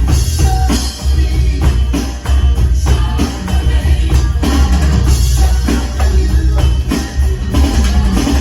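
Drum kit played along to a recorded pop-rock song with a heavy bass line, with steady drum hits throughout.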